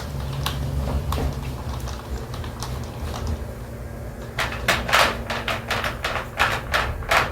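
Paintbrush scrubbing and dabbing paint onto the steel pickup bed, cutting in: a string of short scratchy strokes, sparse at first and coming quickly in the second half, over a steady low hum.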